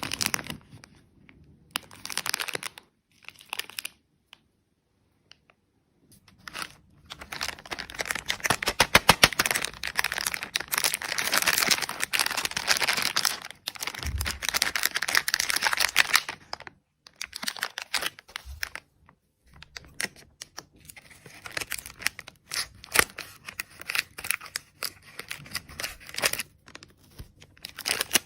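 Candy wrappers being torn open and crinkled, in bursts of crackling with short pauses and a near-silent gap about four seconds in.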